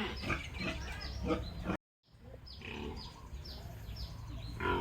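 Pigs grunting and squealing over a run of quick, high, falling chirps. The sound cuts out completely for a moment just before two seconds in.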